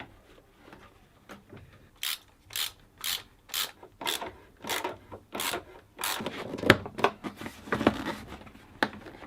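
A ratchet wrench worked back and forth in short strokes, about two a second, tightening a fastener, followed by a few irregular strokes and sharp metallic clicks near the end.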